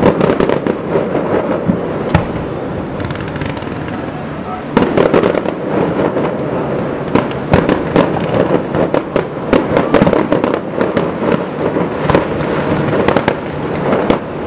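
Fireworks display: aerial shells bursting in a dense run of bangs and crackles, which picks up and grows louder about five seconds in.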